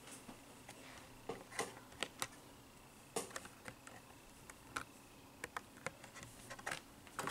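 Faint, irregular clicks and crinkles of a plastic blister pack on a carded Hot Wheels die-cast car being handled and turned in the fingers.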